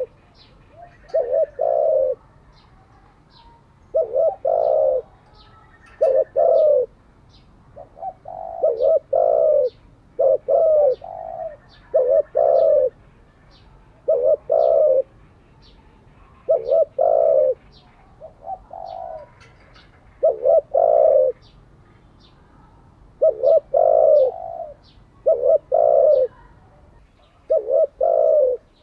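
Spotted dove cooing over and over, each phrase a group of two or three low notes, repeated every two to three seconds. Faint short high chirps sound throughout.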